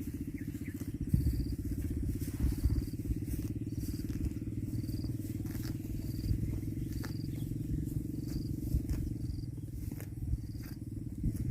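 A small engine running steadily, with a short high chirp repeating roughly once a second.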